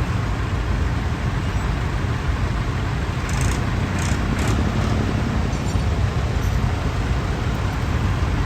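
Vintage farm tractors' diesel engines running close by: a steady low rumble, with a few brief clicks about halfway through.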